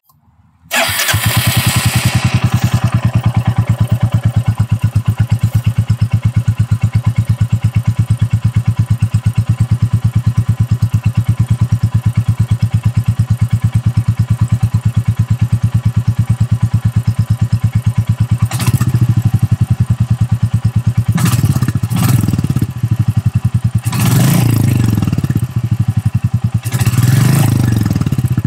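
Royal Enfield Classic 350 single-cylinder engine, fitted with a DNA Stage 2 performance air filter, starting about a second in and then idling with a steady thump through its stock exhaust. In the last ten seconds the throttle is blipped several times, each rev rising and falling quickly.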